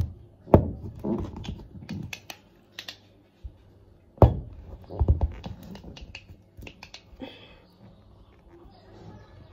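Handling noise of small objects on a table close to the microphone: scattered clicks and taps, with a heavier thump about half a second in and another about four seconds in.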